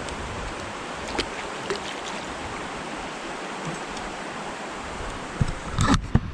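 Swollen creek running fast, a steady rushing of water high with rain. A few low bumps and knocks near the end.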